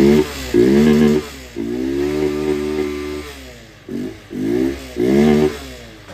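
Honda SP 125's single-cylinder four-stroke engine running with its air filter removed, revved in a series of throttle blips, one held for about two seconds in the middle.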